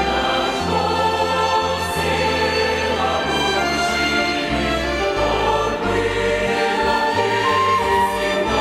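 Mixed church choir singing a slow hymn, accompanied by a violin ensemble, with sustained chords and bass notes that move every second or so.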